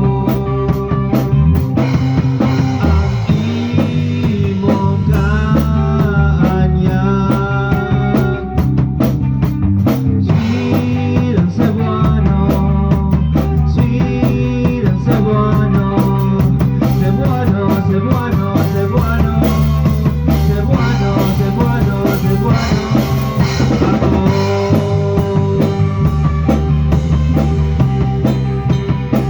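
Rock band playing live, with a drum kit and bass under a melodic lead line that bends in pitch.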